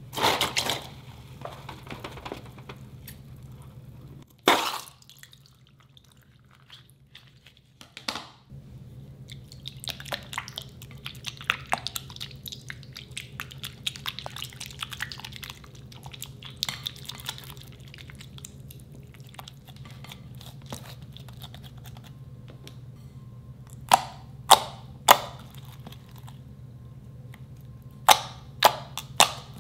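Thick white slime stirred with a silicone spatula in a glass bowl: wet squelching and small clicks, then sharp sticky snaps as hands press and pull the slime, in two quick groups of three near the end.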